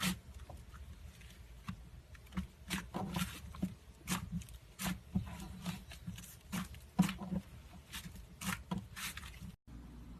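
Slime being squeezed and pressed by hand, giving irregular small wet clicks and pops. The sound cuts out briefly near the end.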